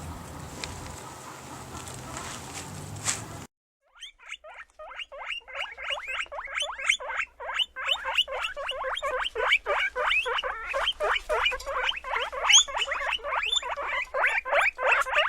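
A steady noisy background cuts off about three and a half seconds in, giving way to a fast run of short, high squeaks, several a second, from small animals.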